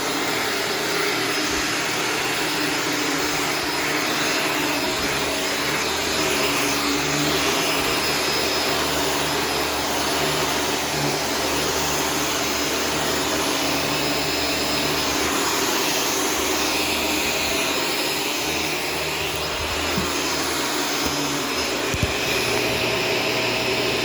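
Shark Stratos self-cleaning upright vacuum running steadily on a floor, its motor giving a continuous whine over a low rumble that comes and goes. Two short knocks near the end.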